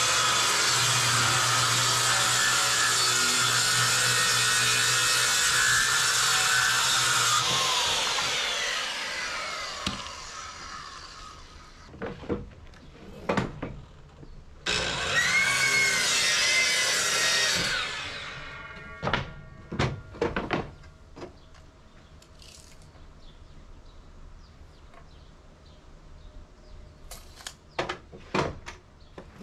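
A handheld circular saw ripping 3/4-inch plywood runs steadily for about seven seconds, then its blade winds down. After a couple of knocks, a DeWalt sliding miter saw spins up and crosscuts a plywood strip for about three seconds before winding down, followed by more knocks of cut pieces being handled.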